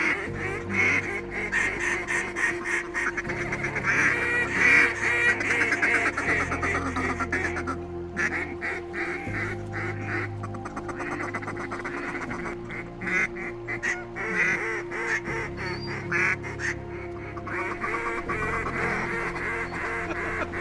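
Duck call blown in runs of quacks, imitating a mallard hen to draw a circling flock of ducks in, densest about four to six seconds in with short pauses between runs. Background music with slow-changing low bass notes plays underneath.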